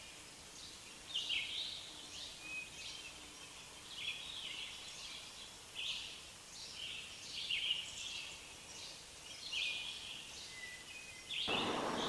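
A bird's short, high calls, repeated roughly once a second over faint outdoor background noise. Near the end the background noise grows louder.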